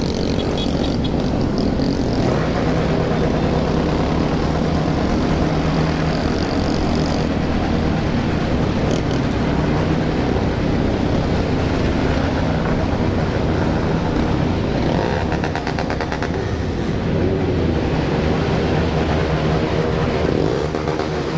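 Many motorcycle engines running together in a large group ride, a loud, steady mass of engine noise with pitches shifting now and then.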